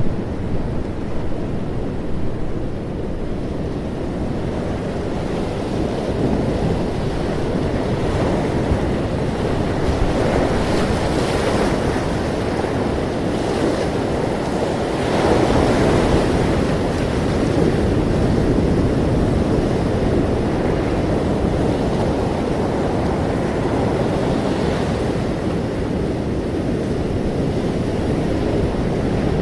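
Ocean surf: a continuous wash of waves with slow swells as waves break, the largest about halfway through, with wind rumbling on the microphone.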